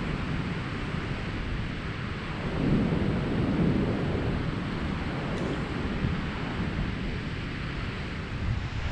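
Wind buffeting the microphone over the wash of surf on the beach: a steady rumbling hiss that swells for a moment about two and a half seconds in.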